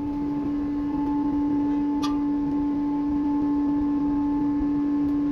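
A steady mechanical hum at one constant pitch over a low rumble, with a faint click about two seconds in.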